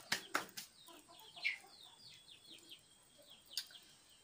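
A bird chirping: a run of short, falling chirps, with a few sharp clicks near the start and one more near the end.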